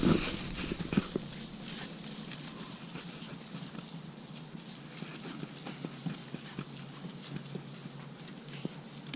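Wet cleaning wipe being rubbed over a plastic car headlight lens: soft, irregular scrubbing with scattered light ticks and knocks, one louder knock about a second in.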